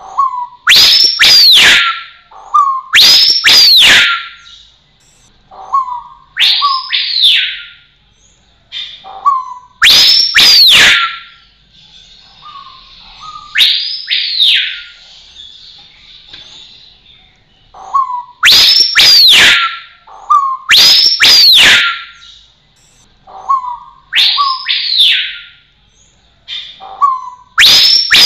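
Rose-collared piha singing: loud whistled phrases repeated every two to four seconds, often in pairs. Each phrase is a short low note followed by a strong slurred whistle that rises and then falls.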